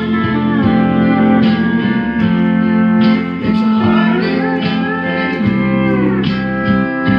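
Steel guitar playing a melody and chords, with notes that slide and bend in pitch, most clearly in a long chord glide around the middle.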